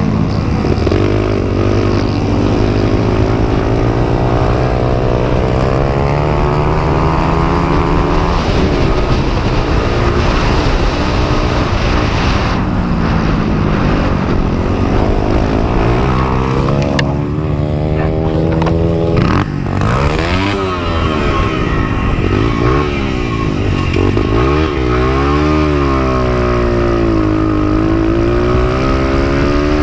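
Vintage Honda XR100 dirt bike's air-cooled four-stroke single-cylinder engine at race pace, revs climbing and falling as it shifts up and down through the gears. The revs drop sharply around the middle, then rise and fall in several quick swoops near the end.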